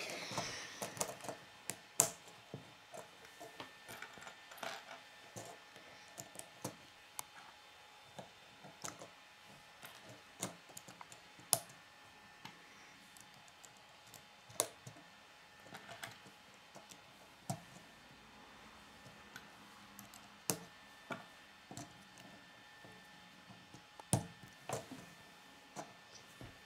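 Plastic K'nex rods and connectors being handled and snapped together: irregular small clicks and taps, a few sharper than the rest, as pieces are fitted and set down on a wooden table.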